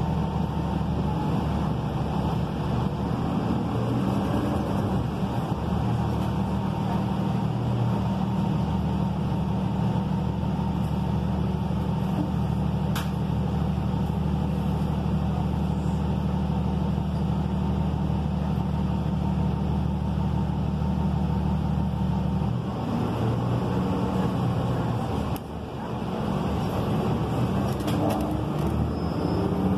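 Cummins ISL 9 diesel engine of a 2013 Gillig Low Floor bus running at a steady idle, heard from inside the cabin. Over the last several seconds the steady note breaks up and its pitch starts to shift and rise as the engine revs, with a brief dip in level along the way.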